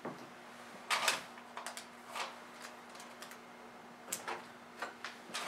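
Adhesive tape tabs being peeled off and pressed down onto a plastic film sheet and carrier mat: scattered light clicks, taps and crinkles of tape and fingertips on plastic, over a faint steady hum.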